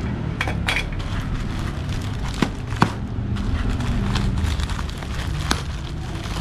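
A parcel being opened by hand: a few sharp clicks and snaps of packaging, with scattered rustling, over a steady low background rumble.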